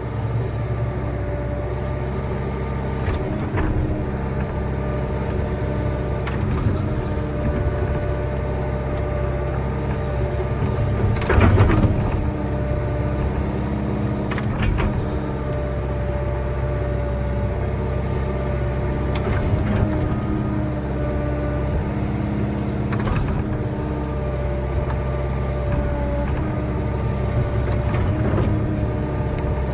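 Diesel engine of a heavy earthmoving machine running steadily while it cuts and pushes dirt, with a few sharp metallic clanks, the loudest about eleven seconds in.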